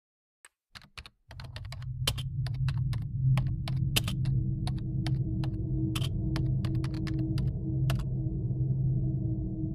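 Typing on a computer keyboard: irregular keystrokes that stop near the end. A low steady hum starts underneath about a second in.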